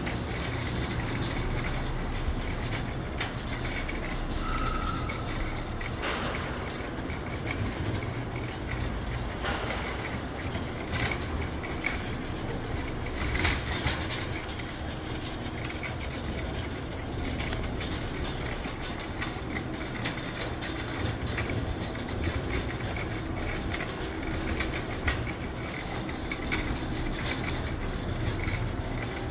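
Supermarket shopping cart being pushed along, its wheels rumbling and the wire basket rattling steadily, with scattered knocks and clatters.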